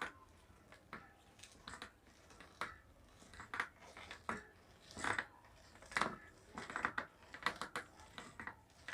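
Faint, irregular creaks and clicks from the front suspension fork and handlebar headset of a Hero Sprint front-suspension bicycle as it is worked. This is the noise the owner hears when turning the handlebar, along with a stiff handlebar.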